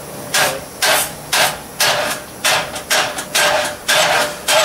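Starter motor on a Ford 429 big-block V8 bumping the engine over, jumped at the solenoid with no ignition: a quick series of short cranking bursts, about two a second.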